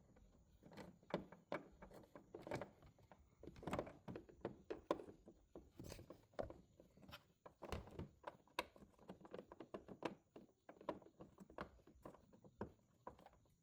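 Faint, irregular clicks and light knocks of pliers and a plastic turn-signal bulb socket against the headlight housing as the socket is worked into place, with a few louder knocks about four, five and eight seconds in.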